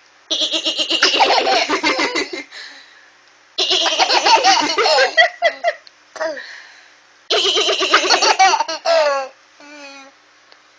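A baby laughing hard in three bursts of belly laughter, each about two seconds long, with short squeals near the end.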